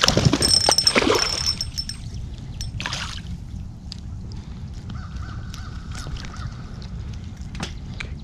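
A hooked crappie splashing at the water's surface as it is pulled out, followed by a second brief splash, then softer water sounds and small clicks as the fish is handled.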